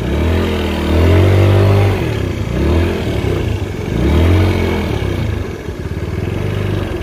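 50cc scooter engine, fitted with a larger carburetor, revved up and back down three times, then settling into a steady idle for the last couple of seconds.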